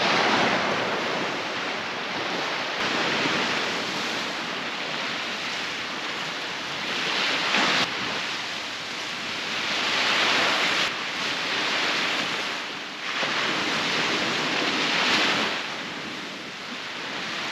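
Ocean surf washing onto a beach, a steady rush of breaking waves that swells and eases every few seconds.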